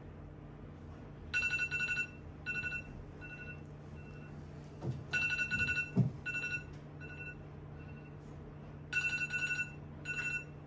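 Alarm clock beeping: three rounds of high electronic beeps, each a quick run of loud beeps followed by a few spaced beeps that fade away, repeating about every four seconds. A couple of soft thumps come midway through.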